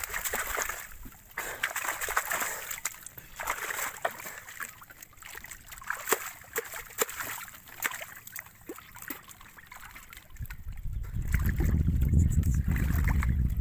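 Water splashing and sloshing as fish are grabbed by hand in a netted fish trap, in bursts that thin out after the first few seconds. A low rumble comes in about ten seconds in.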